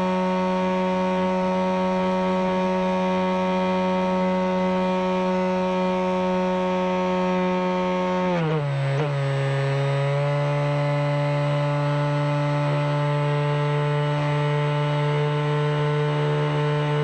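Multirotor drone's motors and propellers buzzing steadily, loud and close as picked up by the craft's own camera. About eight seconds in, the pitch drops quickly, wavers briefly, and settles into a lower steady hum.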